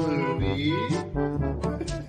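Background music with a repeating bass line and a melody that slides up and down in pitch.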